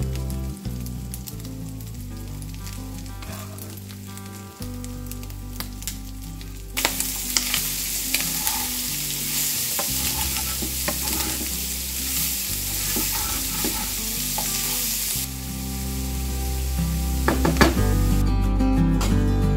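Diced homemade pork sausage and chopped onion sizzling in a frying pan, stirred and scraped with a wooden spatula. The sizzle grows much louder about seven seconds in and eases somewhat after about fifteen seconds.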